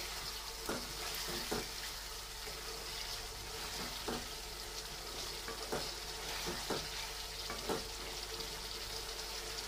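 Thick masala sizzling in a metal pan while a wooden spatula stirs and turns whole boiled eggs through it, with a steady frying hiss and scattered taps and scrapes of the spatula against the pan.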